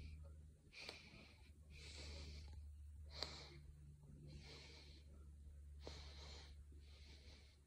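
Faint breathing close to the microphone, roughly one breath a second, over a low steady hum, with a single soft click about three seconds in.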